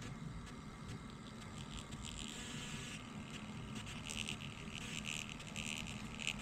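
Small printer of a combustion analyzer buzzing as it prints the test report, in a series of short bursts starting about two seconds in.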